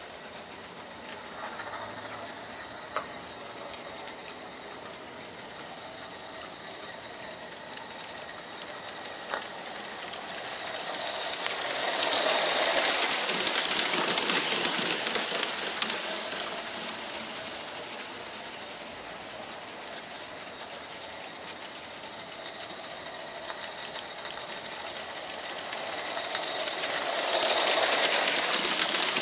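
Live-steam G-scale Accucraft D.S.P.&P. 2-8-0 locomotive running with its coaches: a rapid hissing beat of steam exhaust and wheels on the track. It grows loud twice, around 12 seconds in and again near the end, as the train passes close by, and is fainter in between.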